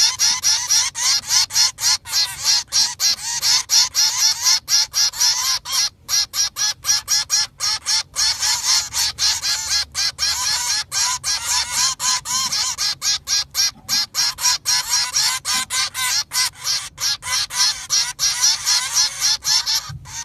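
A flock of ducks calling continuously, many rapid overlapping calls with no let-up.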